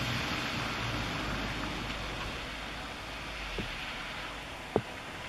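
Steady hiss of rain falling, with a low rumble fading away over the first couple of seconds. Near the end come two short taps about a second apart, the second one sharp and the loudest sound.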